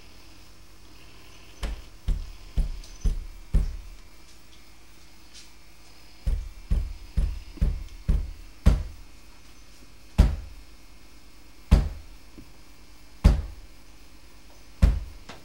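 A series of heavy, dull thumps. First comes a quick run of about two a second, then a second run, then single thumps about a second and a half apart near the end.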